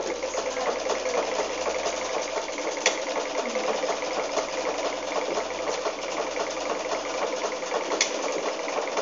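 Electric sewing machine running steadily at speed, stitching fabric being fed under the needle, with a sharp click about three seconds in and again near the end.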